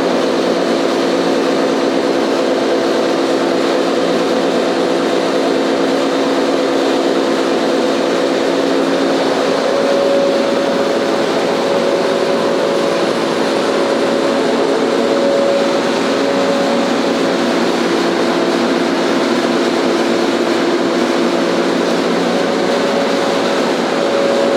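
Staiger H15-30 horizontal grinder, driven by a 30 hp electric motor, running steadily: an even mechanical hum with several held tones, and a light rattle from the safety door over the drive shaft.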